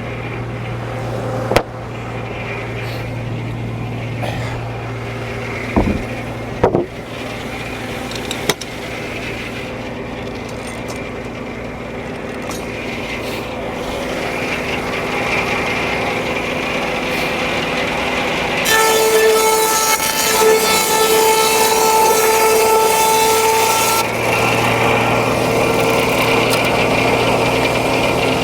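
Frick No. 1 circular sawmill running, with a steady hum from its power unit and a few sharp knocks in the first several seconds. About two-thirds of the way through, the blade cuts through the log for about five seconds, a loud hissing cut with a ringing whine, then drops back to the running hum.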